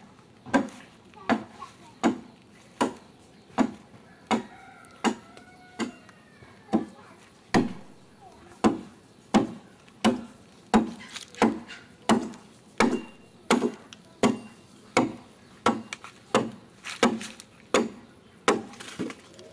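Adze chopping into the wooden hull of a dugout canoe as it is hollowed out: steady sharp strikes, about three every two seconds.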